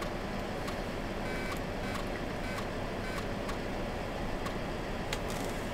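Steady room hum and hiss, with a few faint computer-mouse clicks.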